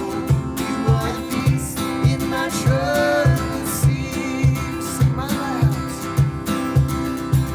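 Music: strummed acoustic guitar over a steady beat, with a melody line rising and falling above it.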